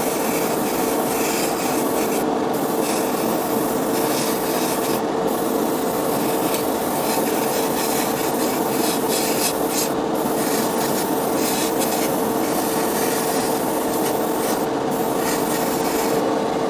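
Continuous abrasive rubbing, like sanding or filing, over a steady hum that runs without a break.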